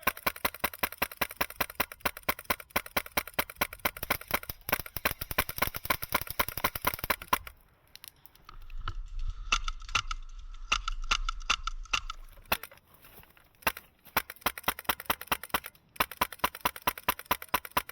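Airsoft gun firing strings of rapid shots, sharp cracks about four a second. A pause comes just before 8 s, and the firing resumes in bursts through the second half.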